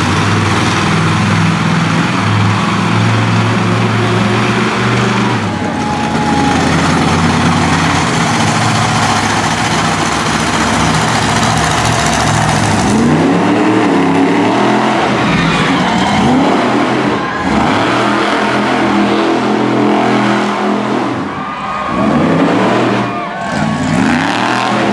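Monster truck engine running loud and steady, then revved up and down repeatedly through the second half, its pitch rising and falling several times.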